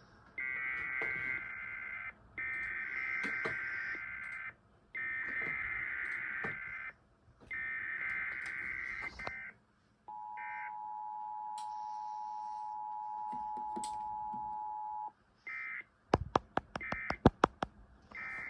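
Emergency Alert System test tones: four data bursts of the SAME header, each about two seconds long, then the EAS two-tone attention signal held steady for about five seconds, then three short end-of-message data bursts. A quick run of sharp clicks comes in among the closing bursts.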